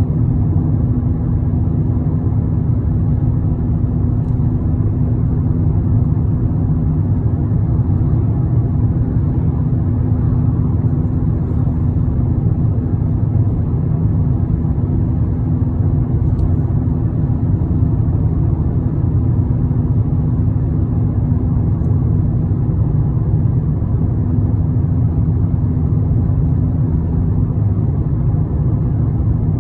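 Steady low engine rumble with a constant droning hum, unchanging throughout.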